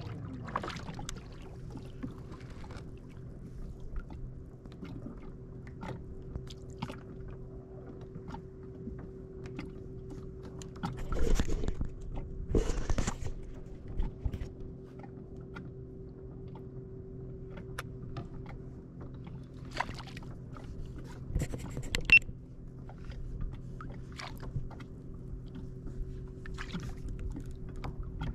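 A small motor on a fishing kayak runs with a steady hum. Louder water splashes come about 11 and 13 seconds in, and scattered knocks and clicks sound on the hull and gear, with a sharp click a little past the middle.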